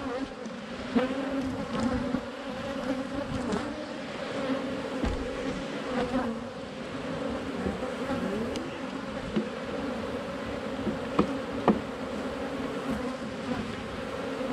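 Honeybees buzzing steadily around an open hive, a dense drone of many bees. Two sharp knocks stand out about three-quarters of the way through.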